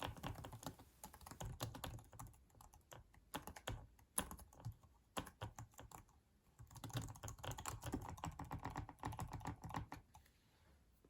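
Typing on a Roiche Peanuts Snoopy silent keyboard: runs of soft, faint key clicks that thin out in the middle and pick up again after about six seconds.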